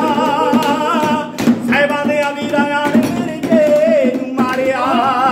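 A man singing a Punjabi song in a loud, full voice, holding long wavering notes that glide between pitches.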